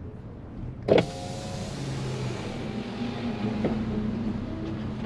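A loud click about a second in, then the Fiat Panda's electric window running as it lowers, with outside road noise growing louder as a hiss. There is a smaller click a couple of seconds later.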